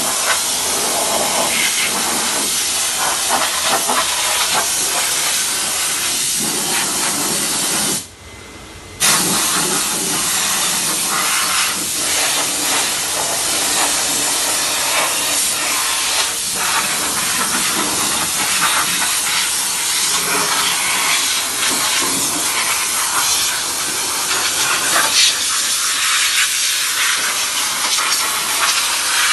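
Steam cleaner wand jetting steam over a car's engine bay: a steady loud hiss that cuts out for about a second near a third of the way through, then starts again.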